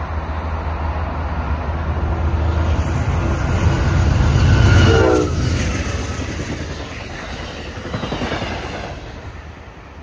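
Amtrak passenger train passing at about 80 mph. Its low rumble builds to a peak about five seconds in as the locomotive goes by, and its horn drops in pitch as it passes. The rumble of the passing cars then fades away.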